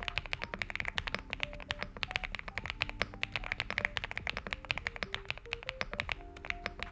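Fast typing on a Stars75 mechanical keyboard fitted with linear five-pin switches: a dense run of keystrokes, several a second, with a fairly poppy sound.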